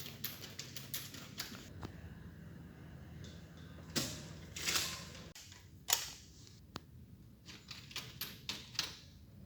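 Irregular sharp clicks and knocks, with louder strikes about four and six seconds in and a short rushing scrape between them, and a quick run of clicks near the end.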